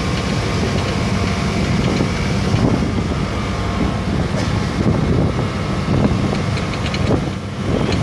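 Passenger boat's engine running with a steady low drone, wind blowing across the microphone.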